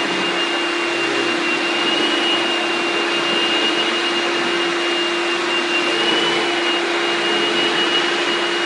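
Shop-Vac canister vacuum running steadily with an electric Kenmore power head, its brush roll working over a rug: a constant motor drone with a steady high whine on top.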